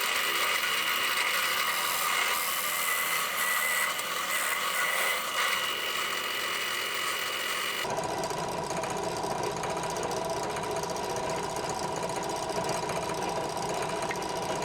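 Electric drill motor running steadily with a whine while boring 12mm holes in wood. About eight seconds in the sound changes abruptly to a different, lower steady machine run.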